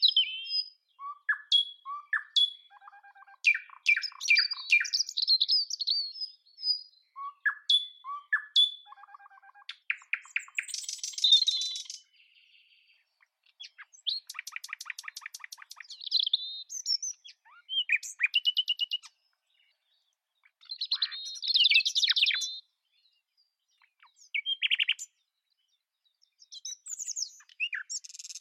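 Nightingale singing: varied phrases of chirps, whistles and fast rattling trills, broken by pauses of a second or two.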